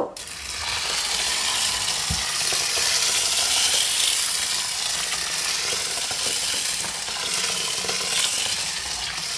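Freshly boiled water poured in a steady stream into a stainless steel bowl of mung beans, splashing and filling the bowl.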